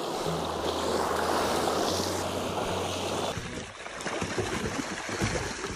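Water rushing out of a fish pond as it is drained, a dense steady rush that thins out after about three seconds.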